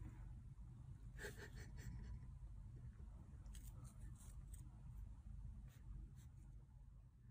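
Near silence: quiet room tone with a low hum and a few faint clicks and rustles, from a kitten pawing at and handling a small plastic object.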